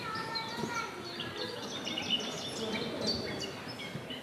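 Quiet background of an audience in a large hall: faint murmur and movement, with scattered short high-pitched sounds.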